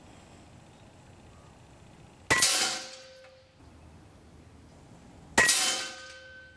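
Two .30-calibre 59-grain ZAN slugs striking a steel target plate, about three seconds apart: each a sharp metallic clang that rings out and fades within about a second.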